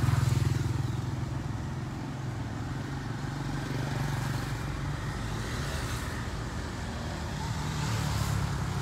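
Steady low hum of a road vehicle's engine running at an even pace, under a haze of road noise, swelling slightly near the end.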